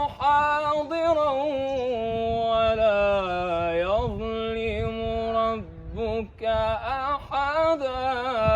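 A man reciting the Quran in the melodic tajweed style, unaccompanied and with no added effects. His voice is held in long ornamented notes that slide and waver in pitch, dipping briefly about six seconds in.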